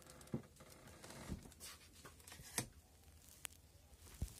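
Faint handling noise: a gloved hand rustling and lightly tapping about five times on the metal frame and wiring under a removed car seat.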